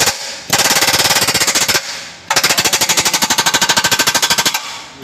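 Impact wrench hammering as it runs bolts down on a newly fitted steering rack: rapid, even rattling blows in two bursts, the second about two seconds long, with another burst starting right at the end.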